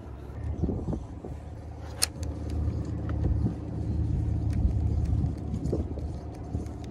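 An engine's low, steady drone that grows louder over a few seconds and then eases off, with a single sharp click about two seconds in.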